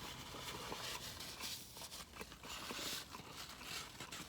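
Faint eating sounds: a few soft clicks and rustling noises.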